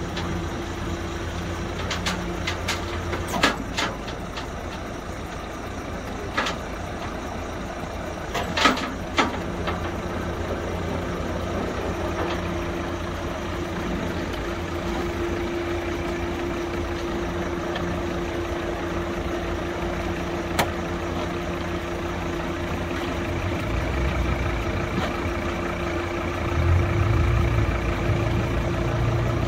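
Heavy diesel truck engine idling steadily as a wrecked hatchback is winched up a tilt-tray tow truck's tray. There are a few sharp knocks in the first ten seconds, a steady hum comes in about twelve seconds in, and the engine gets louder near the end.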